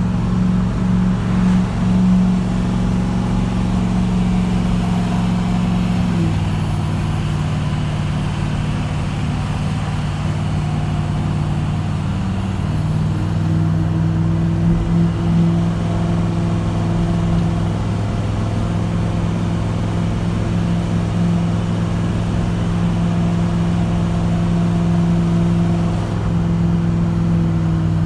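A vehicle engine running steadily, its pitch stepping down about six seconds in and rising slightly again around thirteen seconds.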